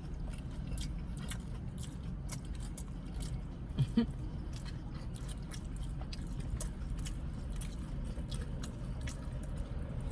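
Close-up chewing of a loaded baked potato: a steady run of small wet mouth clicks and smacks. About four seconds in comes a brief low vocal sound, like a short hum.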